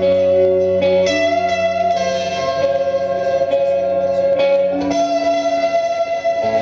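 Live rock music with no vocals: electric guitars ring out held chords through effects, changing chord every second or so.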